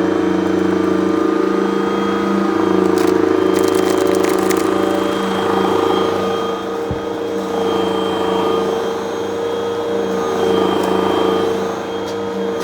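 Vacuum cleaner motor running steadily with a hum, with a quick run of crunchy clicks and crackles about three to four and a half seconds in as grit is sucked up.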